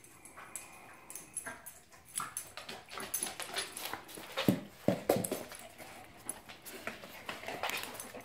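Large dog moving about on a hardwood floor, its claws clicking, with short whines. A few sharp, louder sounds come about halfway through.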